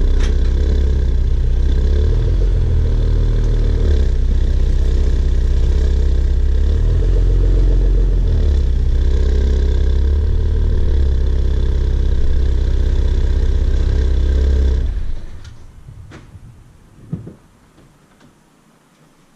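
2015 Porsche Macan S's twin-turbo V6 running with a loud, low drone that shifts in pitch now and then, then cutting out about fifteen seconds in. A single short knock follows a couple of seconds later.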